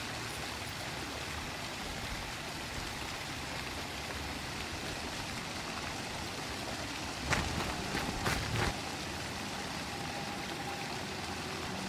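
Steady outdoor background hiss of location ambience, with a few brief, faint sounds about seven to eight and a half seconds in.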